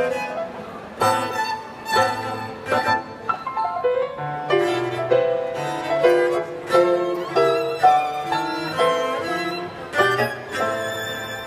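Live piano trio playing: violin, cello and grand piano together, the bowed violin the most prominent over struck piano chords and cello.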